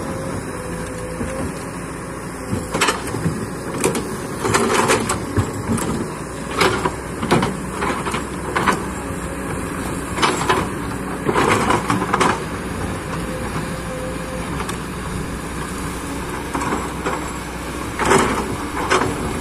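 Excavator's diesel engine running steadily under irregular short clanks and scrapes from the bucket working the ground.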